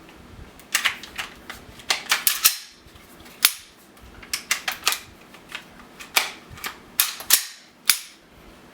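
Unloaded Glock 17 Gen 2 pistol being handled: a quick, irregular series of sharp clicks and clacks of its polymer frame, slide and small parts being worked and set down, starting about a second in.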